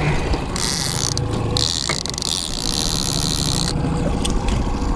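A trolling rod's fishing reel ratcheting, in a short run and then a longer one that stops about a second before the end, over the steady low hum of the boat's motor.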